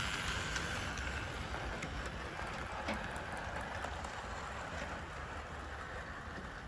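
Bachmann OO-gauge LMS Crab Class model steam locomotive running along the layout track with coaches in tow: the steady whirr of its small electric motor and wheels on the rails, with a few light clicks.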